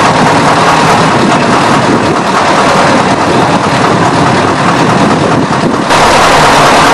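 An engine running steadily and loudly, with no change in pace.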